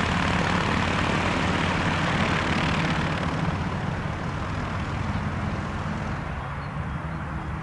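Light propeller aircraft's engine drone passing by, the rush of it dying away over the last few seconds as the aircraft moves off.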